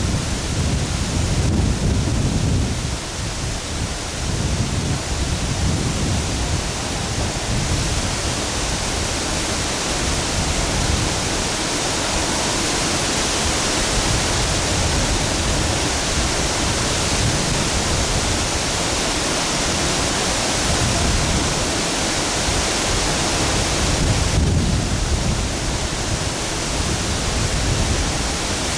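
Dugarwadi waterfall pouring, a steady loud rushing of falling water, with a heavier low rumble swelling near the start and again about 25 seconds in.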